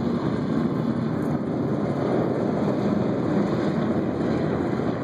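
Distant rumble of an Atlas V rocket with no solid boosters, its RD-180 first-stage engine climbing after liftoff: a steady, dense low roar.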